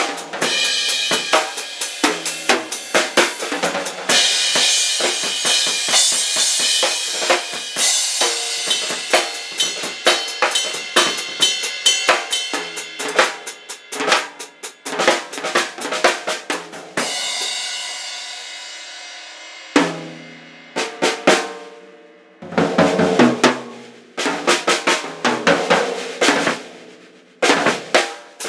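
Drum kit played with wooden sticks in a free improvisation: fast fills on snare and toms with bass drum and crashing cymbals. About seventeen seconds in, a cymbal is left ringing and dies away for a couple of seconds. Then come short runs of strokes with pauses between them.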